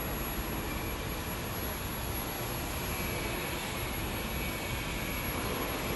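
Steady, even roar of running furnace machinery, with a faint high-pitched whine above it.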